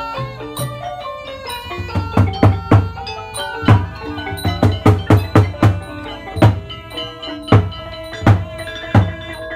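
Cambodian traditional ensemble music accompanying dance: a busy melody of struck xylophone- and gong-like notes, with heavy drum strokes coming in about two seconds in and beating on in an uneven pattern.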